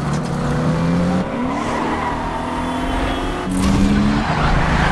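Car engine running hard, its pitch stepping up and down as it accelerates and eases off, with tyres skidding.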